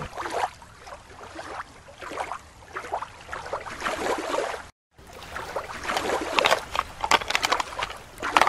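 Shallow water sloshing and splashing, with crackling and rustling noises. There is a brief silent break a little before halfway, then a run of clicks and rustles.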